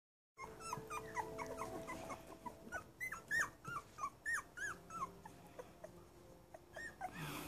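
Two-week-old Aussiedoodle puppies whimpering: a run of short, high squeaks, each rising and falling in pitch, about two or three a second, louder from about three seconds in.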